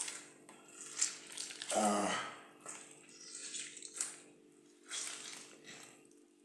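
Washing things by hand in a kitchen sink: short separate splashes and rubbing sounds about a second apart, with a faint steady hum underneath.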